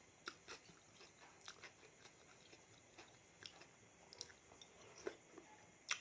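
Faint chewing and wet mouth clicks of someone eating raw seafood salad, with one sharper click near the end.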